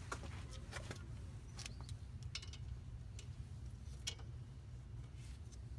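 A few scattered light metallic clicks and clinks as hand tools and brake parts are handled, spaced irregularly, over a steady low background rumble.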